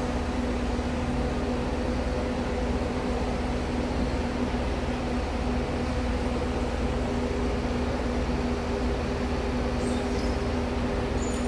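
Parked coach buses idling: a steady drone with an even low hum.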